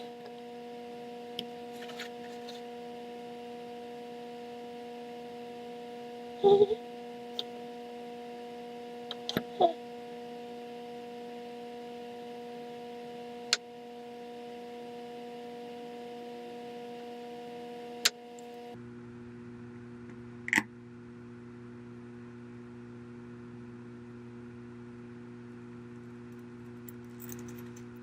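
Steady electrical hum that drops to a lower, different pitch about two-thirds of the way through, with a few small clicks and taps of tools or parts against the phone.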